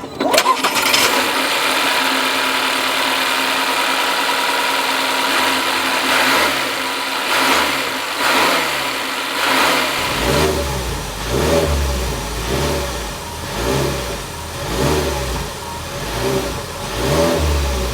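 2024 Mazda CX-90's 3.3-litre turbocharged inline-six engine running, with its pitch rising and falling a few times and then a string of short revs, about one a second, through the second half.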